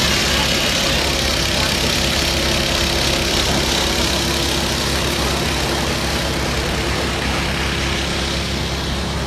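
Heavy diesel road-works machinery running steadily close by, a low engine drone with a constant hiss, easing off slightly near the end.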